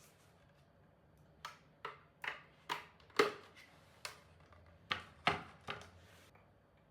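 A series of about ten sharp knocks and clacks, irregularly spaced, from hard objects striking each other; the sixth knock, near the middle, is the loudest.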